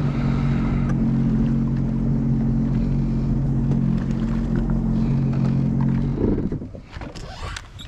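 Sea-Doo Fish Pro jet ski's three-cylinder Rotax engine running at a steady pitch while under way, then falling away about six seconds in.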